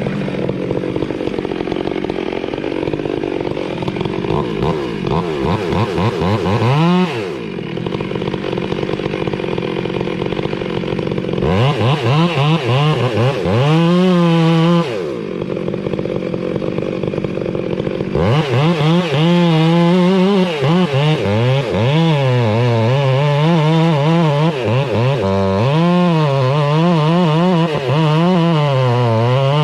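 Two-stroke chainsaw running, first ticking over low, blipped up briefly twice, then from about two-thirds of the way through held at high revs with the pitch wavering up and down as it cuts into wood.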